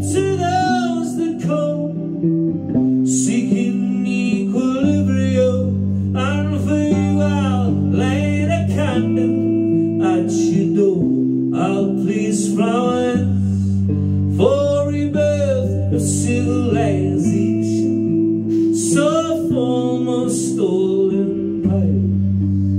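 Live song: a hollow-body electric guitar played through an amplifier, its chords ringing and changing every second or two, under a man's voice singing long, drawn-out notes.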